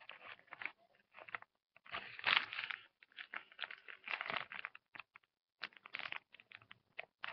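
Crinkling and rustling of a sealed paper wrapper of a sterile ABD pad being handled close to the microphone, in irregular bursts with short pauses.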